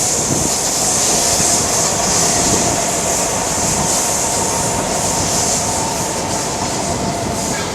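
SMRT North South Line metro train running past on the track: a steady loud rush of wheel and rail noise with a low rumble and a steady high whine.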